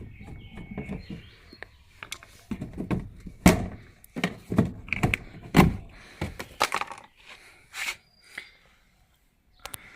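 A series of irregular knocks and clunks from a washing machine being handled and taken apart. The hits are loudest and closest together through the middle, with light scraping and rattling between them.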